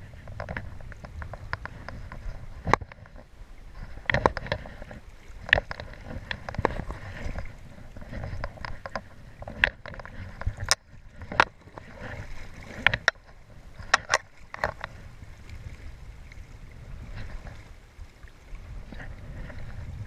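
Steady rush of a fast river with low wind rumble, broken by irregular sharp clicks and scrapes as a fly rod is handled and fly line is stripped in by hand.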